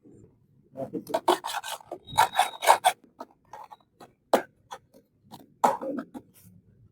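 Hands unboxing toy packaging: irregular scratchy rubbing and scraping, densest in the first half, then a few sharp clicks.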